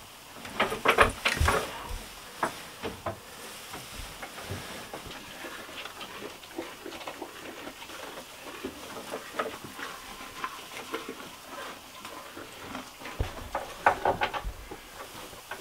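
Dry hay rustling and crackling as it is handled and pulled from a sack, with dense, loud crackles about a second in and again near the end. In between come softer, scattered crackles while a cow chews hay.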